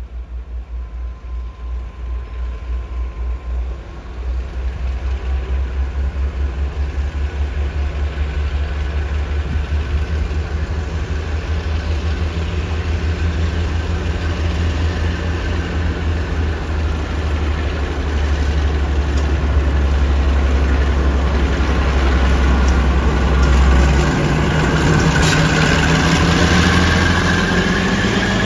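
Class 52 'Western' diesel-hydraulic locomotive's twin Maybach diesel engines working as it pulls away with a train. The deep throb pulses unevenly at first, then steadies and grows louder, and the engine note rises near the end as the locomotive comes alongside.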